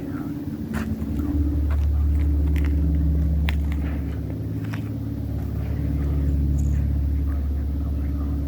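Steady low motor hum that swells a little and eases off, with scattered light clicks and taps over it.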